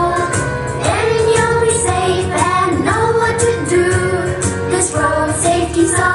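Children singing a road-safety song over a pop-style backing track.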